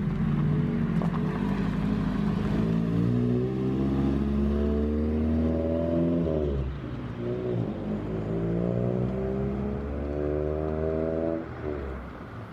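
Honda CRX Si's B16A DOHC VTEC four-cylinder engine accelerating, its pitch rising steadily for about six seconds, falling at a gear change, then climbing again until another shift near the end. The engine is being road-tested for a bogging, hesitating misfire.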